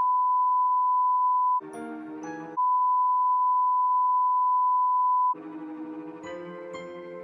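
A steady, loud electronic beep at one pitch (a pure tone around 1 kHz, like a censor bleep or test tone) holds for about two seconds, breaks for a second of chorded music, returns for nearly three seconds, then gives way to music near the end.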